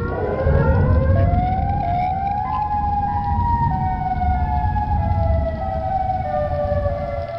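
Outdoor tornado warning sirens wailing, several at different pitches overlapping, their tones rising over the first two and a half seconds and then slowly falling, with a steady low rumble underneath.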